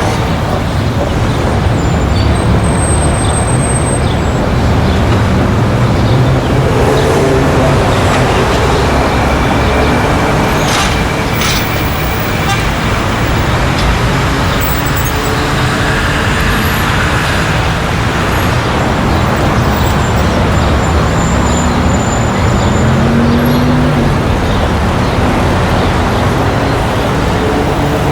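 Street traffic: a steady, dense wash of cars and buses driving past, engines and tyres blending together, with a vehicle's engine pitch rising briefly near the end.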